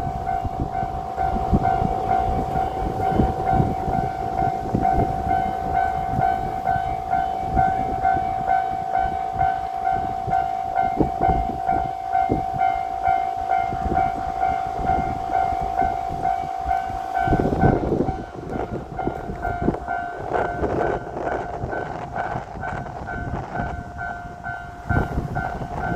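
Japanese level-crossing alarm ringing steadily in a pulsing electronic tone while a diesel railcar train passes, its wheels clattering and its engine rumbling. About two-thirds of the way through there is a loud surge, and then the bell tone goes on more weakly.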